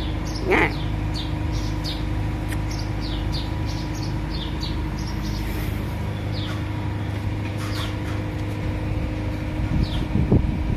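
Small birds chirping repeatedly, short high falling chirps scattered through, over a steady mechanical hum with fixed tones from a running motor. A few low knocks near the end.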